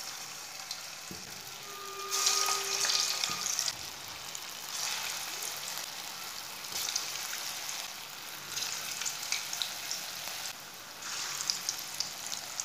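Gram-flour and mint kebab rolls deep-frying in hot oil in a karahi, a steady sizzle that surges each time another roll is slid into the oil, about every two seconds.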